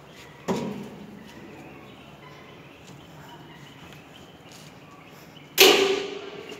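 Two metallic clunks from the grinder's stainless steel drum being tilted on its frame with the hand lever. The second, near the end, is much louder and rings briefly.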